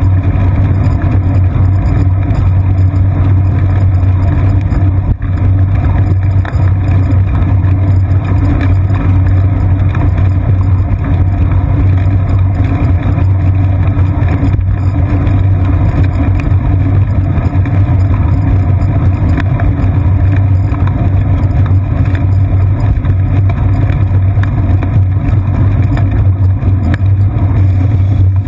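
Loud, steady low rumble of a bicycle ride picked up by a seat-post-mounted GoPro Hero 2 in its housing: wind on the housing and vibration from the tyres rolling on pavement.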